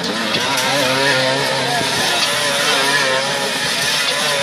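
Two motorcycle engines running and revving inside a steel-mesh globe of death as the riders circle, their pitch rising and falling continuously.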